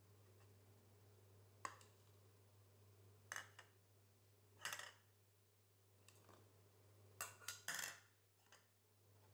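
Green chillies, then garlic cloves, dropped into an empty stainless steel mixer-grinder jar: a handful of short, quiet clatters against the metal, over a faint steady hum.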